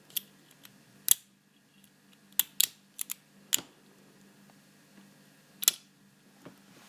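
About eight sharp clicks and taps at irregular intervals, like small hard objects being handled close to the microphone; the loudest come about a second in and near the end.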